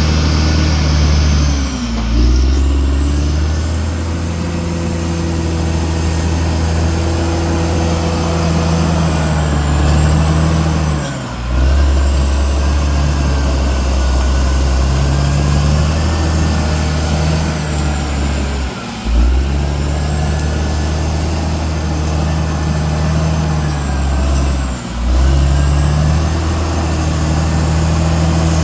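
CAT D6R XL bulldozer's diesel engine running steadily under load, its note dipping briefly and picking back up about four times.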